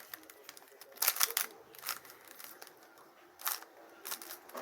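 Rubik's cube layers being turned by hand: plastic clicks and clacks in short irregular runs, with a quick cluster about a second in and single clicks after.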